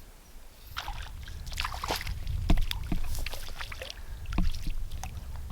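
Water splashing and sloshing, with a few sharp knocks, over a steady low rumble.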